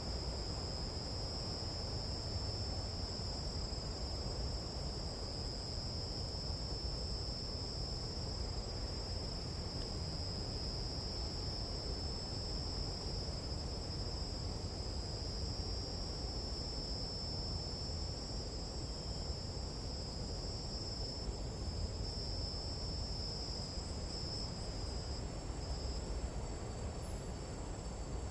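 Tropical night insect chorus: a steady, unbroken high-pitched trilling in two close pitches, over a low, even background noise.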